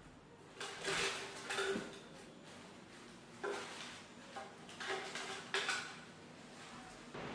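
Scattered things being picked up off a hard floor: a string of short clatters, knocks and rustles as headphones, cables and clothes are handled.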